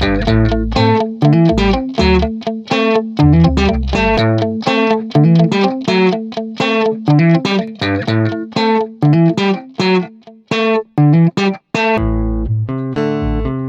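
Background music led by quick plucked guitar notes over a low bass line, the texture thinning about twelve seconds in.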